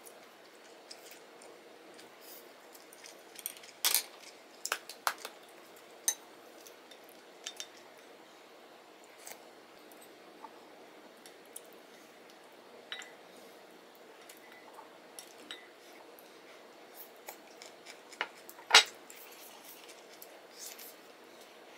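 Eating utensils clinking and tapping on dishes: chopsticks and a wooden spoon against ceramic bowls and a plastic rice tub, scattered light clicks, with one sharper knock near the end.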